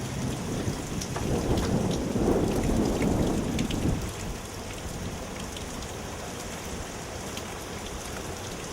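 Heavy rain falling in a hurricane's outer feeder band: a dense, steady hiss with scattered drop ticks. A louder swell of low noise comes in the first few seconds, then eases about four seconds in.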